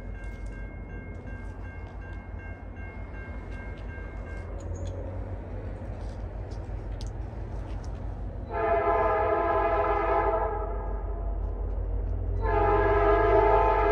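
Diesel freight locomotive's multi-chime air horn: a long blast a little past halfway, then a second long blast starting near the end, over the low steady rumble of the approaching train.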